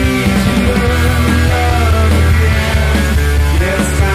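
Background rock music with a strong, steady bass.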